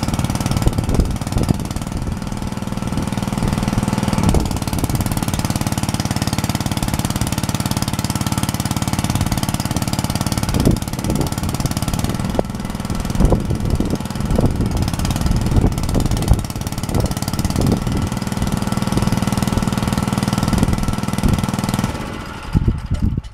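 Mini tractor engine running steadily with scattered knocks while its hydraulic front lift is being tested. The engine stops near the end.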